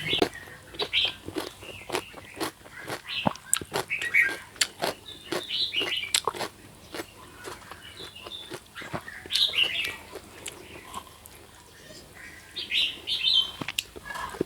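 Close-up eating sounds: many short, crisp crunching and smacking clicks of chewing, with short bird chirps mixed in.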